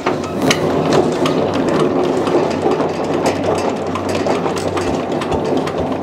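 Forage chopper (chaff cutter) running and chopping fresh napier grass. A steady machine hum sits under a dense rattle of cutting, which gets louder right at the start as the grass is fed in.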